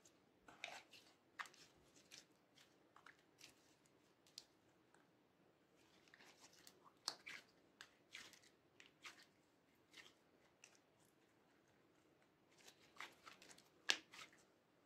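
Orange slime being squeezed and kneaded by hand, giving faint, scattered sticky crackles and small pops, busier again near the end.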